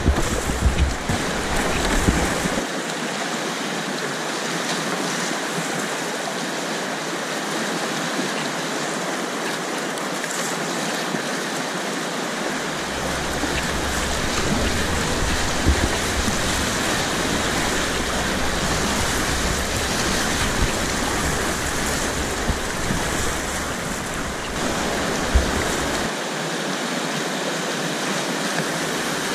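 Whitewater rapids rushing loudly and steadily around the kayak, with a deep rumble under the rush for the first couple of seconds and again from about 13 to 26 seconds in.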